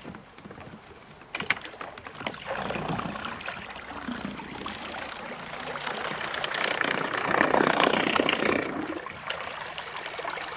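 Water churning and swishing from the propeller of a bow-mounted Minn Kota electric trolling motor as a small boat pulls away, growing to its loudest about seven to eight seconds in. A few sharp knocks in the first couple of seconds.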